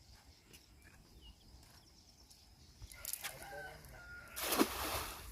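A rooster crows about three seconds in, followed by a short, loud rushing noise near the end.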